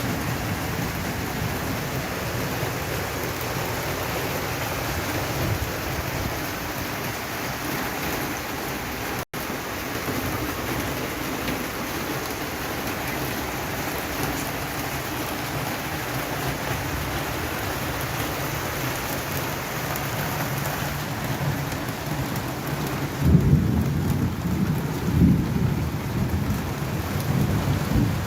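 Steady rain falling, an even hiss of drops on the balcony and plants. Near the end come two loud, deep low rumbles.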